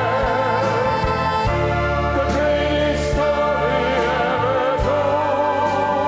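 Mixed choir singing a Christmas song with vibrato over instrumental accompaniment, the harmony shifting about a second and a half in and again near the end, with scattered percussion strikes.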